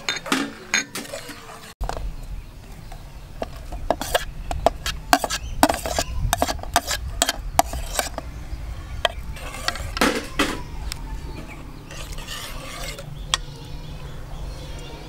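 Metal ladle knocking and scraping against a metal cooking pot as broth is stirred and ingredients are scraped off a plate into it: a run of sharp clinks, thickest in the middle, over a steady low rumble that sets in about two seconds in.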